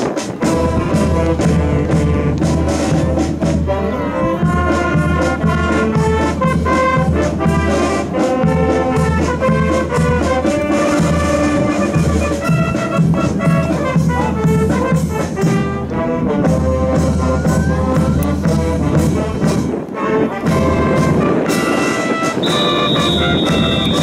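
Military brass band playing: trumpets, saxophones and sousaphone over a steady bass-drum beat. A high held note joins near the end.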